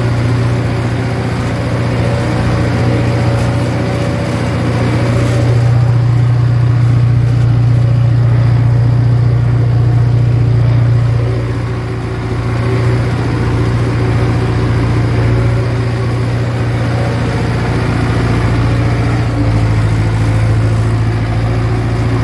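YuMZ-80 tractor's diesel engine running steadily under load while puddling a flooded paddy, heard close from the cab with a strong low hum. It grows louder about five seconds in and eases again about twelve seconds in.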